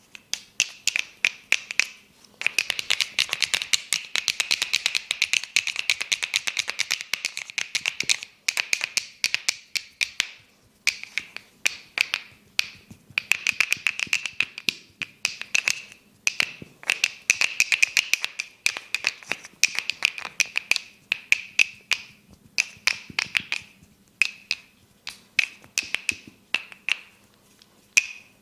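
Rapid, crisp clicking and tapping of a barber's hands on an oiled head and neck during a massage. The clicks come in long fast runs broken by brief pauses.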